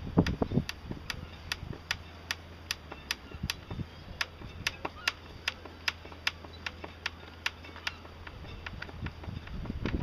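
Rapid ticking, about four sharp ticks a second and not quite even, over a steady low hum, with a low rumble at the start and again near the end.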